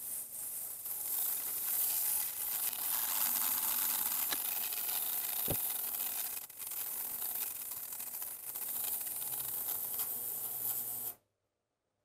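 Benchtop ultrasonic cleaner running, a steady high hiss from its cleaning bath, cutting off suddenly near the end.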